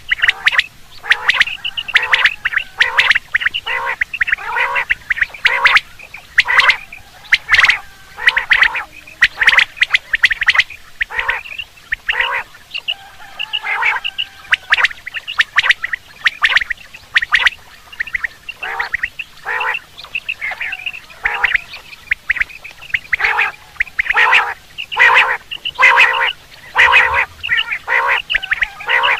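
Quail calling: short calls repeated more than once a second without a break, some overlapping.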